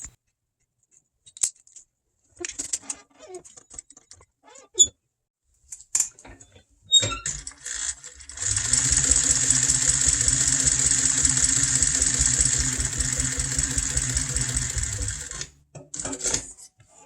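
Small clicks and rattles of handling at a sewing machine, typical of putting in a new bobbin, then the sewing machine runs steadily for about seven seconds stitching vinyl, stops, and runs briefly again near the end.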